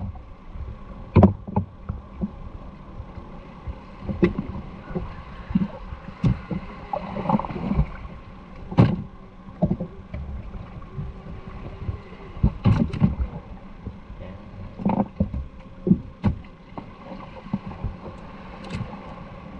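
Irregular knocks and thuds, about seven of them spread unevenly, over a steady background rush.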